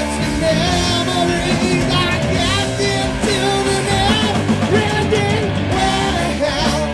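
Heavy rock band playing: distorted electric guitar and drums, with a man singing a long, wavering vocal line over them.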